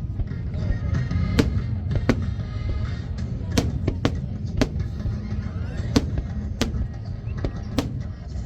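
Aerial fireworks shells bursting overhead with about a dozen sharp bangs at uneven intervals, over loud music playing along with the show.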